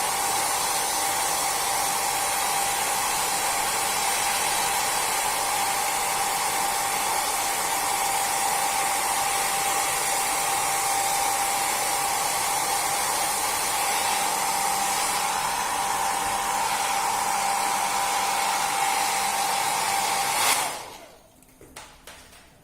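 Hot-air blower running steadily with a constant whine, switched off abruptly about twenty seconds in, followed by a few faint clicks.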